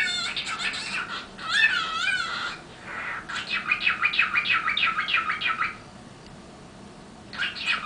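A pet songbird singing. It gives warbling phrases, then a long rapid trill of repeated high notes. After a pause of about a second and a half, the trill starts again near the end.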